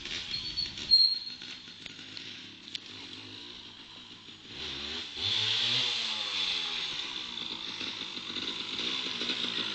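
Honda MBX 80's two-stroke single-cylinder engine heard as a faint, distant drone as the bike rides away. About halfway through, its revs rise and fall and it grows steadily louder as the bike rides back. A brief sharp click about a second in.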